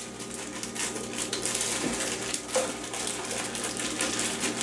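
Plastic bag of baby carrots crinkling and rustling as it is worked open, with the carrots tumbling out of it into a slow cooker's crock near the end.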